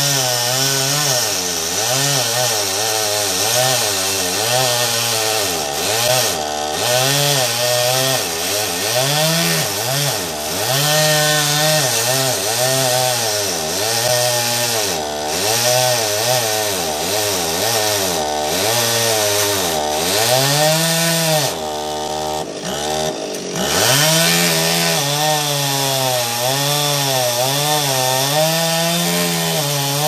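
Two-stroke chainsaw cutting wood, its engine speed rising and falling again and again as the chain bites and bogs. About 22 seconds in it drops briefly toward idle, then revs back up and carries on cutting.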